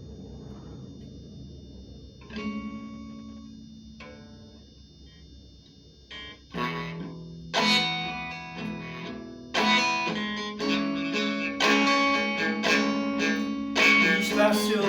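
Guitar intro. A chord is plucked and left to ring about two seconds in, and another comes near four seconds. From about six and a half seconds a steady pattern of plucked and strummed chords sets in, growing louder.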